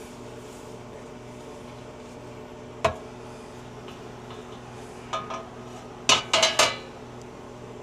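Metal freeze-dryer trays being handled and set down, clattering: one sharp knock about three seconds in, two lighter clinks around five seconds, then a quick run of louder clanks near the end, over a steady electrical hum.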